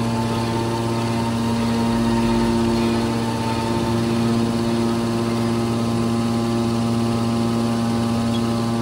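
Hydraulic power unit of a scrap metal baler running steadily: an even machine hum made of several steady tones, with no change in pitch or load.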